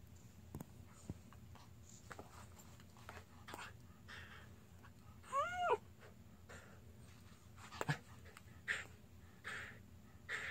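A dog playing on its back, giving short breathy puffs of breath, with one short whine about halfway through that rises and falls in pitch.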